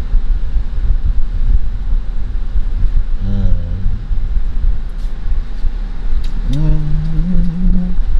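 Steady low rumble throughout, with a man's brief voiced sound about three seconds in and a long "mmm" hum near the end as he chews and tastes a boudin ball.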